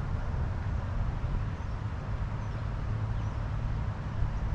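Wind buffeting the microphone: a steady, uneven low rumble with a fainter hiss above it.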